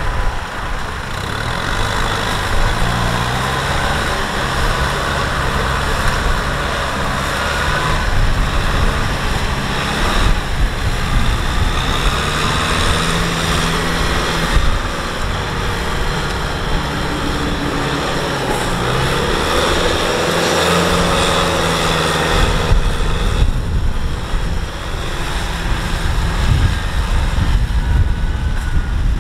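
Kubota M6040SU tractor's four-cylinder diesel engine running under load as it drives a rear rotary tiller through wet mud, its pitch rising and falling with the load, over the churning of the tiller.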